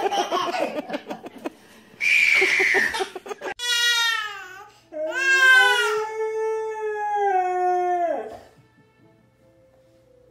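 Siberian husky howling: two drawn-out howls, a short one and then a long held one that drops in pitch as it ends. Before them, in the first few seconds, come short choppy bursts of excited vocal noise.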